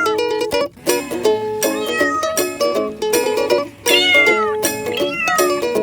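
Instrumental break of a bouncy song played on plucked strings like a ukulele, with a few bending meow calls over it.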